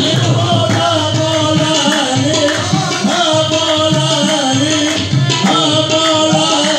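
Qawwali music: quick tabla strokes under a held, wavering melody line, with no words sung.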